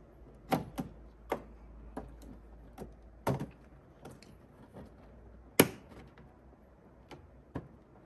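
Scattered plastic clicks and knocks of an XPG RAM stick being handled and pressed into a desktop motherboard's memory slot, with one sharper click a little past halfway as it seats and the slot latch snaps shut.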